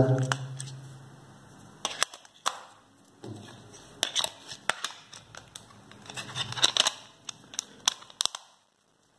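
Plastic back cover of a JioFi M2S pocket 4G hotspot being fitted and pressed onto its case: scattered sharp plastic clicks, bunched around the middle and again a little later, with rubbing between them.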